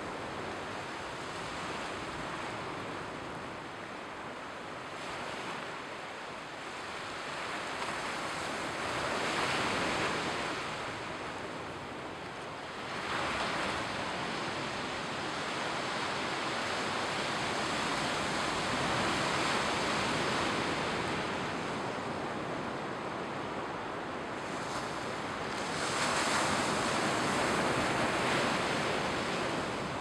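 Mediterranean Sea surf washing onto a sandy beach. A steady rush of water swells louder every several seconds as a wave breaks, then falls back.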